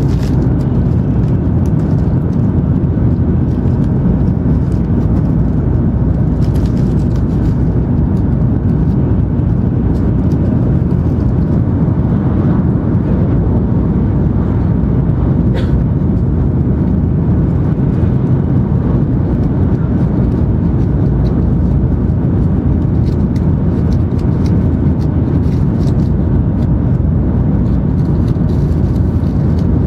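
Steady low rumble of an N700 series 8000 Shinkansen train running at high speed, heard inside the passenger cabin.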